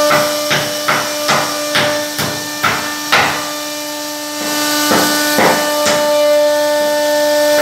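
CNC wood router's spindle whining steadily as it cuts into a wooden door panel. Sharp knocks come about two a second for the first three seconds, and a few more follow after about five seconds.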